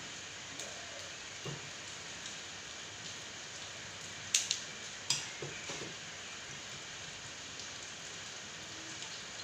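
Scissors snipping open a small boxed milk carton: two sharp snips about three quarters of a second apart, over a steady background hiss.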